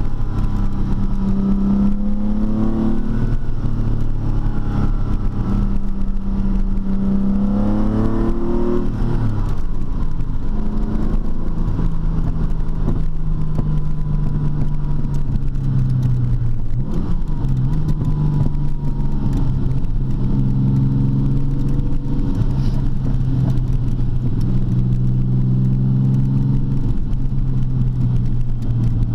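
TVR T350's engine running, its note holding steady, climbing briefly about a third of the way in, then dropping and settling at a few different speeds.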